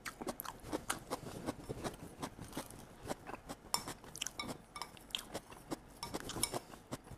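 Chopsticks clicking and scraping against ceramic bowls as sauced shredded cabbage is scraped out, mixed and picked up, giving a steady run of small, quick clinks.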